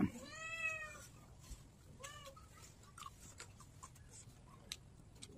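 A cat meowing twice: one long meow rising and falling in pitch at the start, and a shorter one about two seconds in, followed by faint clicks.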